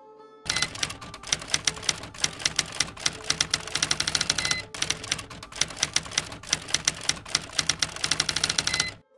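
Typewriter keys striking in rapid runs as text is typed out, pausing briefly now and then, with a short ding near the middle and again just before the typing stops.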